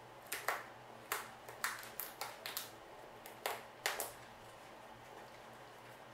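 A quick, irregular run of about ten sharp clicks and taps in the first four seconds, from the rat moving in her wire cage, then only a faint steady background.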